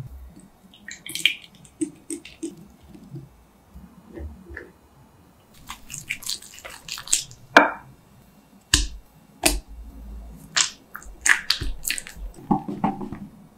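A spatula and a wire whisk working batter in a glass mixing bowl: irregular taps, clicks and short scrapes against the glass as flour and then egg yolks are mixed in.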